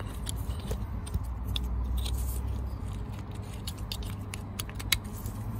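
Scattered light clicks and plastic taps of hands fitting a brake vacuum sensor and plugging in its electrical connector, over a low rumble that is louder between about one and three seconds in.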